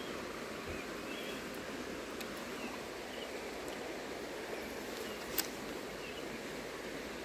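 Shallow stream running over stones, a steady rushing of water, with a single sharp click a little over five seconds in.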